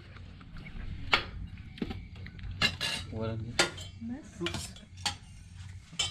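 Steel plates, serving pots and ladles clinking and scraping as food is dished out, with a string of separate sharp metallic clinks.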